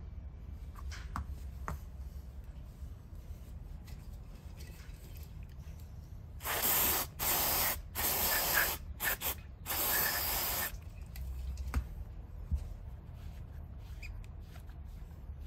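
Compressed air blown over a brake caliper piston in about half a dozen short hissing blasts, starting about six and a half seconds in and lasting some four seconds, blowing cleaning moisture off the piston. Faint rubbing of a rag on the metal follows.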